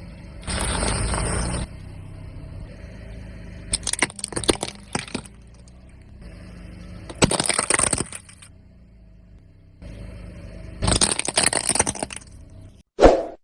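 A car's tyre rolling over and crushing brittle objects, with cracking and crunching in several bursts over the car's engine running low. A brief loud tone comes near the end.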